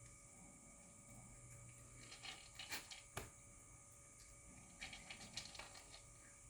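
White Shiba Inu eating: faint, short clicks and crunches in two clusters, one a couple of seconds in and another near the end, over a steady faint background hum.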